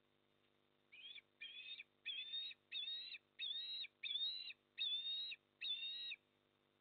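Osprey calling: a run of eight short, high whistled calls, evenly spaced and growing louder, starting about a second in.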